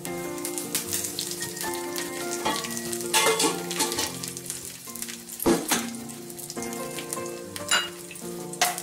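Tempering sizzling in hot oil in a small kadai: mustard seeds, cumin, chilli seeds and curry leaves hiss steadily and crackle with sharp pops, the loudest about five and a half seconds in. The crackling is the sign that the tempering is ready.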